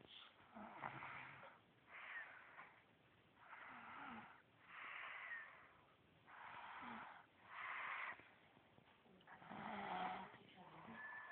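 A person snoring in a steady rhythm, a rough, raspy breath every one to two seconds, some with a low rattling edge.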